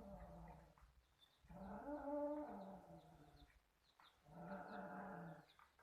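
Domestic cat yowling during mating: two long drawn-out yowls, the first rising and falling in pitch, the second steadier and shorter.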